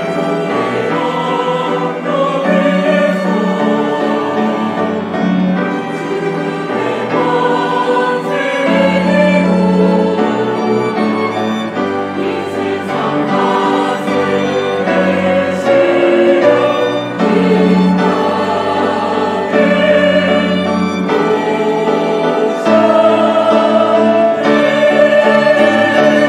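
Mixed church choir singing a Korean Christmas anthem, accompanied by piano, cellos, violin, flute and clarinet. The music grows louder about 23 seconds in.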